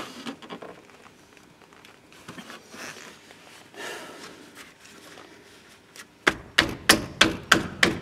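A spanner turning out a brake caliper bolt. For the first few seconds there is only faint metallic tapping and handling noise. About six seconds in, a run of sharp metallic clicks begins, evenly spaced at about three a second.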